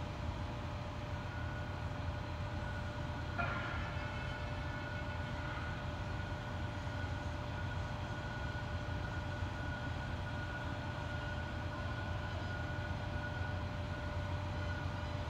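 Idling double-decker tour bus engine: a steady low rumble with a constant high whine over it, and one short knock about three and a half seconds in.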